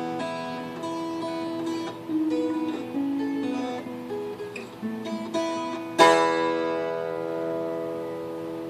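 Acoustic guitar fingerpicking single notes, then a final strummed chord about six seconds in that rings out and slowly fades.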